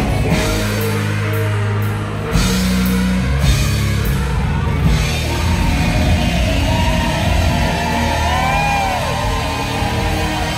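Live rock band playing acoustic guitars, bass guitar and drums. Cymbal crashes ring over held low bass notes in the first half, and in the second half a few notes bend up and down.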